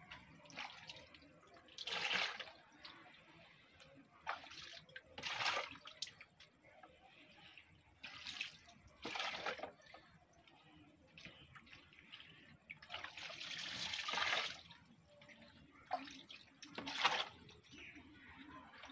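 Shallow pond water sloshing and splashing as a plastic scoop is dipped in to lift fish fry with the water and tip them into a plastic tub, in separate splashes a few seconds apart, one of them longer about two-thirds through.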